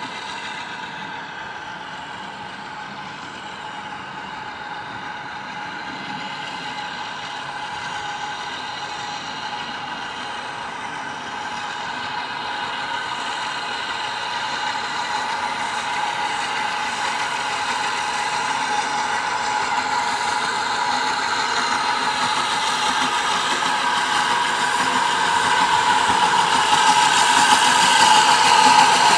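Hunslet 14-inch saddle tank steam locomotive running toward the listener, growing steadily louder. A steady high whine of several tones runs through it.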